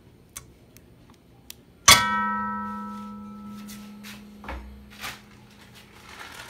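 A metal spoon knocks once, sharply, against an aluminium saucepan about two seconds in, and the pan rings like a bell, the tone dying away over a couple of seconds. Soft clicks and taps of the spoon come before and after as a spoonful of butter is dropped into the pan.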